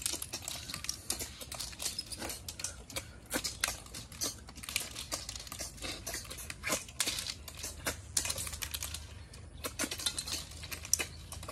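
Several people eating cooked snails: a busy, irregular clatter of quick clicks as snail shells knock against steel plates and bowls while they are picked up and eaten, with short sucking noises among them.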